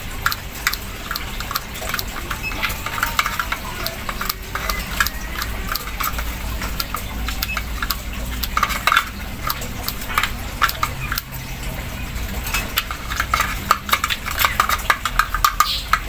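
Scissors snipping over and over inside a small plastic feed cup, chopping mealworms into fine bird feed: a fast, irregular run of blade clicks and taps against the plastic.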